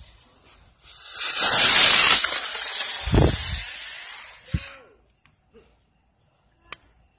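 TNT Two-Color Spaceship firework hissing loudly as its sparks spray out, beginning about a second in and fading away after about four seconds. A single sharp click follows near the end.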